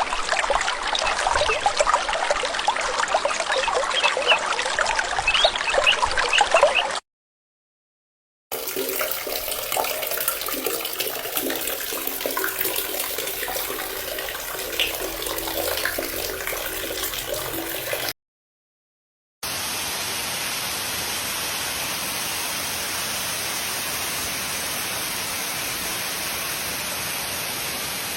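Three separate water sound effects, each cut off by a short silence: first about seven seconds of busy water crowded with quick little pops, then a sparser, more uneven stretch of moving water, then steady, even running water.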